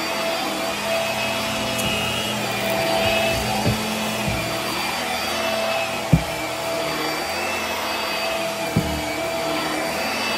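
Hart stick vacuum running over carpet: a steady motor whine whose pitch wavers slightly as it is pushed back and forth, with three short knocks, the loudest about six seconds in.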